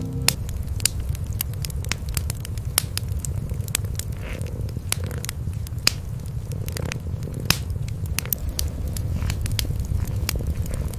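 Wood fire crackling with frequent sharp, irregular pops, over a continuous low rumble of cats purring.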